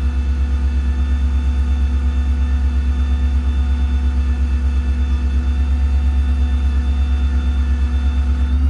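Ford F-600's 7.3 V8 gas engine running steadily with the PTO engaged, driving the hydraulics for the service-body crane: a steady low rumble with a fast even pulse and a steady whine above it.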